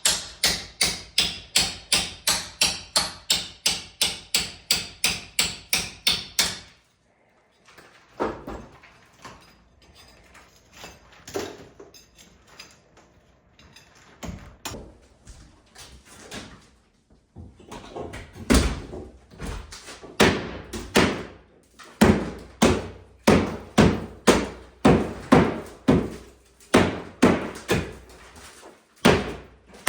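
Repeated blows knocking out old plaster walls: a fast, even run of about four strikes a second, then after a short break slower, irregular and heavier blows, with plaster crashing down.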